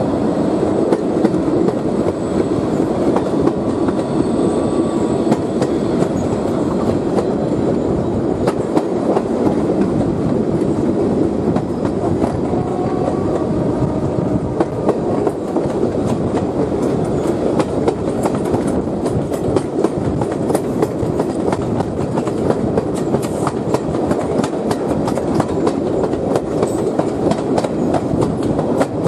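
Train running at speed, heard from an open coach window just behind a Class 66 diesel locomotive: a steady rumble of the locomotive and coaches, with wheels clicking over the rail joints in a rapid clickety-clack.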